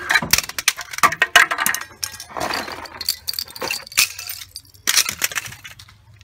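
Brittle plastic cracking and snapping as a truck tyre crushes the old climate control unit from a 1992–1995 Honda Civic, with small broken pieces clattering and clinking on concrete. The sharp cracks come in quick clusters and thin out near the end.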